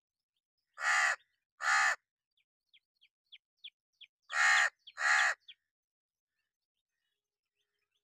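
A crow cawing: two pairs of harsh caws, the calls in each pair under a second apart, with a few faint short ticks between the pairs.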